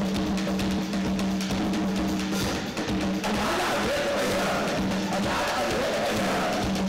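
Zimbabwean band playing live: drum kit and percussion over a held low note, with voices singing in from about three seconds in.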